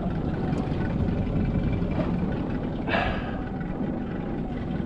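Boat's outboard motor idling steadily, with one brief scuffing sound about three seconds in.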